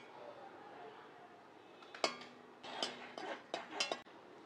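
Metal ladle stirring lump asafoetida pieces as they dry-roast in a metal kadai: one sharp clink about two seconds in, then a quick run of scrapes and clinks against the pan near the end.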